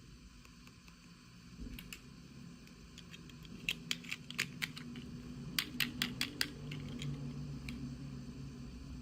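Hands handling small plastic toy pieces and packaging during an unboxing: two quick runs of sharp clicks and taps in the middle, over low handling noise.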